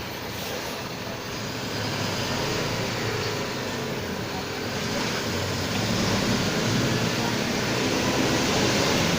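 Mercedes-Benz OF 1721 BlueTec 5 bus's diesel engine running under load and growing steadily louder as the bus gathers speed, along with the loud growl of its driveshaft.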